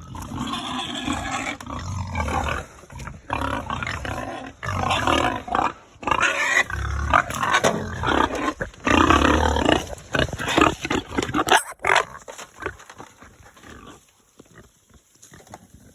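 Hungry pigs screaming loudly for their feed in repeated cries. The screaming dies down about twelve seconds in as the feed reaches them.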